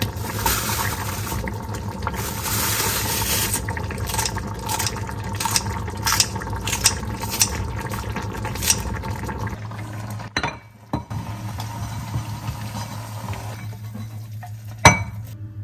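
Tap water running into a kitchen sink while dishes, glass and cutlery clink, until the water is shut off about nine and a half seconds in; a few more clinks follow, and one sharp knock near the end.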